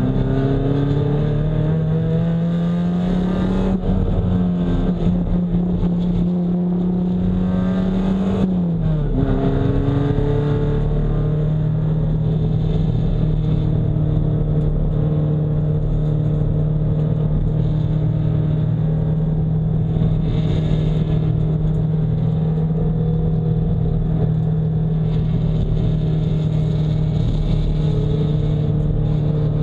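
Nissan 240SX race car engine under load: its note climbs steadily for about eight seconds, drops sharply at an upshift, then holds a nearly steady pitch for the rest.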